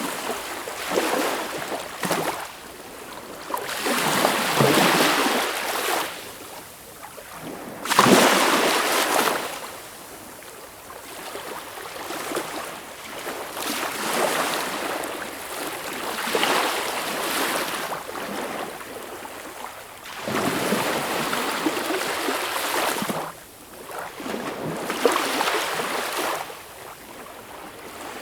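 Sea waves washing in and breaking, as swells of hissing surf that rise and fall every three to five seconds. The loudest comes about eight seconds in.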